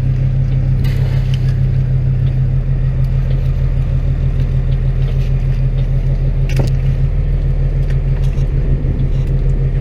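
Fishing boat's engine running steadily with a low hum, and a couple of short knocks as the wire-mesh fish traps are handled at the rail.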